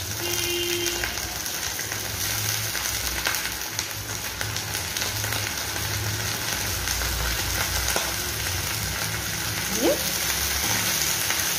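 Chopped kharkol (chamghas) leaves and stalks sizzling steadily in hot mustard oil in a frying pan.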